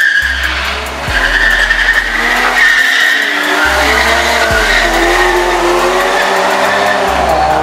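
Two cars accelerating hard side by side in a drag race, engines at full throttle. The engine pitch climbs and falls back several times as they shift up and pull away.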